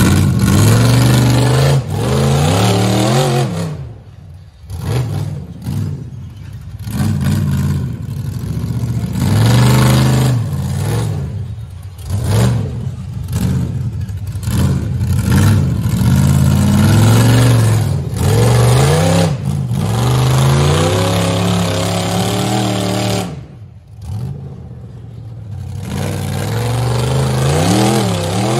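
Rock bouncer buggy's engine revving hard in repeated bursts, its pitch climbing and falling back again and again, easing off briefly twice, as it works under load to climb a steep rock face.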